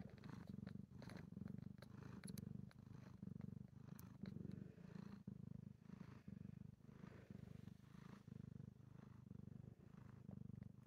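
Domestic tabby cat purring steadily while nursing her newborn kittens. The purr swells and fades about once a second with her breathing.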